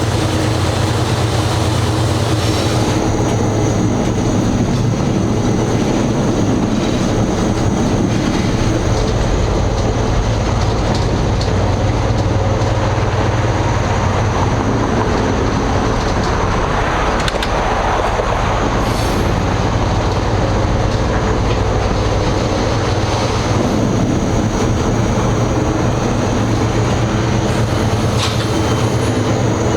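GE 80-ton switcher locomotive heard from inside its cab: the diesel engine running steadily under the wheels rolling on the rails, with a thin steady high whine and a swell of rumbling noise about halfway through.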